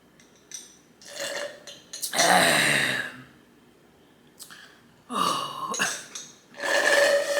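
A woman burping several times in a row. The longest and loudest burp comes about two seconds in, and two more follow in the second half.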